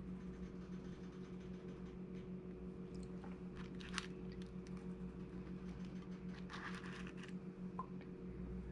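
A few faint crackles and taps as crisp fried tortilla taco shells are handled and hot sauce is shaken onto them, over a steady low hum.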